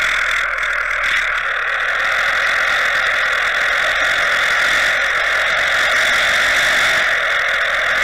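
Steady underwater hiss and whine picked up through a submerged camera: the trolling boat's outboard motor and propeller heard through the water, with water rushing past the housing.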